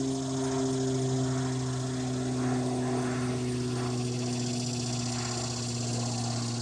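A steady low engine-like drone, sinking slightly in pitch, with a high, fast-pulsing buzz above it.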